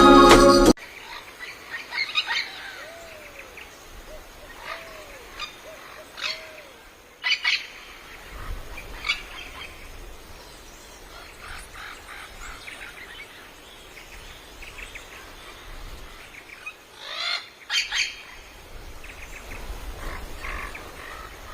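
Birds calling: scattered chirps and short arching calls, with a few loud, brief harsh calls about seven seconds in and again near eighteen seconds.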